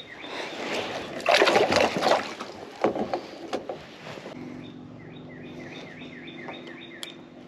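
Water splashing and sloshing around a kayak, loudest about a second and a half in, with a few sharp knocks around three seconds in.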